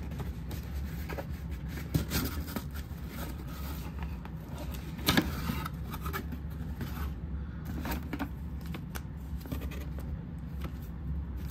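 A cardboard box being opened by hand: the flaps scrape and rub as the end tab is pulled out and the lid is lifted, with scattered clicks and rustles of the packaging and a sharper knock about five seconds in.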